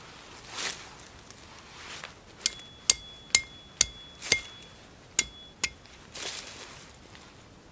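A hammer striking metal: seven sharp, ringing blows in about three seconds, with a short metallic ring after each. Soft brushing noises come before and after the blows.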